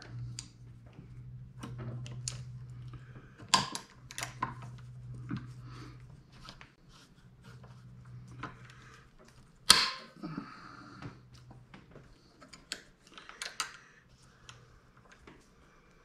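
Steel locking wire being cut and worked with a hand tool: scattered metallic clicks and snaps, the sharpest about ten seconds in, over a low steady hum that fades out about six seconds in.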